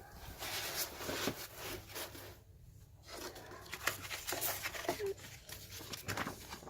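Packaging being handled while a keyboard box is unpacked: irregular rustling and crinkling with small handling knocks, pausing briefly a little before halfway.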